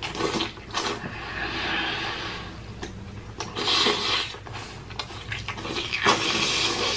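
Close-up mouth sounds from a man with a mouthful of food: wet chewing clicks and smacks, with several heavy, noisy breaths each lasting about a second.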